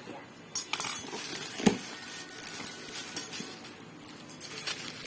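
Scattered clicks and knocks of hard plastic parts and packaging being handled while a mini car vacuum cleaner is unboxed, with one sharper knock about a second and a half in.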